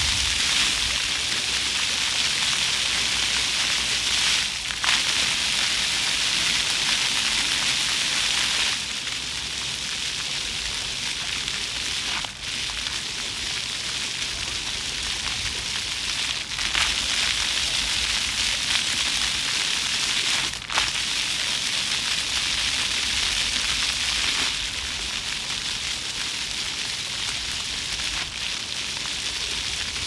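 Floor fountain's rows of water jets shooting up from the paving and splashing back onto the wet stone, a steady hiss of falling water. It drops in level about nine seconds in, rises again around the middle and drops again near the end as the jets change.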